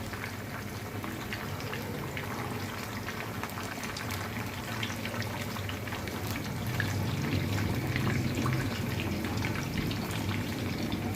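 Whole battered chicken deep-frying in a wok of hot soybean oil: a steady sizzle with many small crackles and pops, which gets a little louder about seven seconds in, as the hot oil is spooned over the top of the bird.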